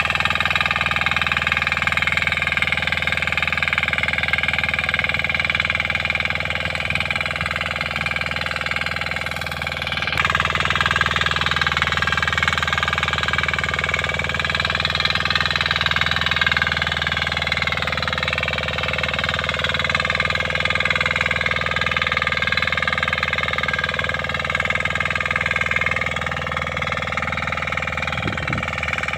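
Kisan Kraft 300D power weeder's 6 hp diesel engine running steadily under load as its rotary tines till the soil between rows. The tone changes abruptly about ten seconds in.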